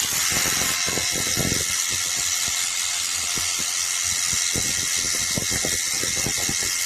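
Battery-powered cordless pressure washer spraying water: a steady hiss with irregular splashing and splattering throughout. By the reviewer's account the spray is weak even on full power.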